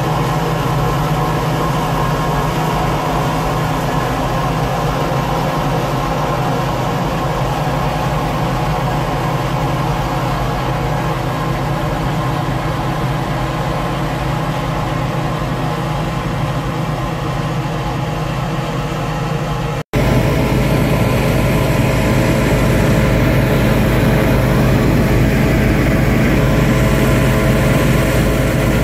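Steady drone of a Claas combine harvester's diesel engine working in a millet field. About two-thirds through, the sound cuts and comes back louder, with the combine running as its unloading auger pours threshed millet into a steel-sided trailer.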